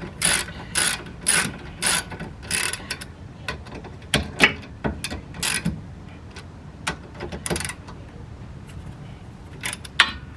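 Socket ratchet clicking in short strokes as a 12 mm brake caliper bolt is run in, about two clicks a second at first, then in scattered bursts with a pause partway through.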